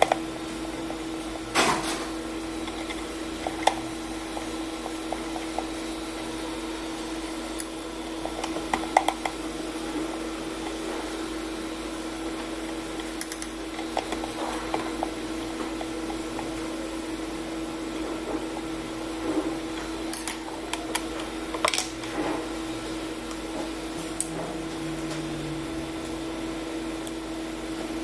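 Scattered clicks and knocks of small parts and tools being handled during a blender power-cord repair, over a steady hum.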